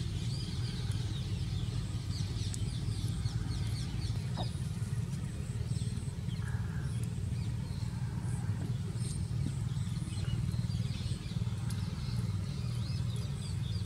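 Birds chirping in the background over a steady low hum.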